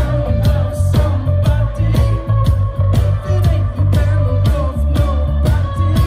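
Live rock band playing through a festival PA, heard from the crowd: electric guitars, bass and a steady drum beat, with singing.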